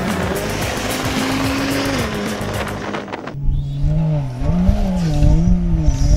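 Music for the first three seconds, then the turbocharged Ford Barra straight-six of a Land Cruiser 4WD revving hard, its pitch rising and falling about twice a second as it works through soft sand.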